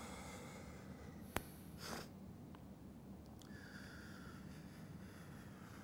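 Faint, effortful breathing of a man pressing dumbbells overhead: a blown-out breath trailing off at the start, a short puff about two seconds in, and a long drawn breath through the second half. A single sharp click comes about a second and a half in.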